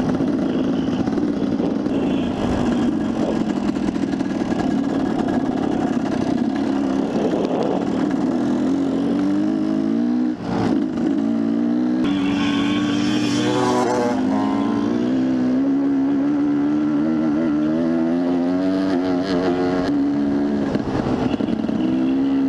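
Dirt bike engine running while riding on a dirt road, its note rising and falling with the throttle. There is a brief drop in the engine sound about ten seconds in.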